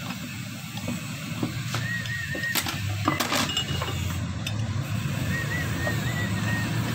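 A few sharp metal clinks about halfway through, as a gear puller is set onto the clutch plate of a car air-conditioning compressor, over a steady low rumble. A wavering high whistle comes and goes.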